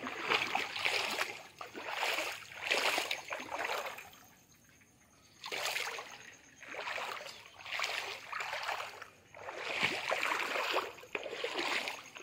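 Footsteps wading through shallow muddy floodwater, a splashing slosh about once a second, pausing for about a second and a half some four seconds in.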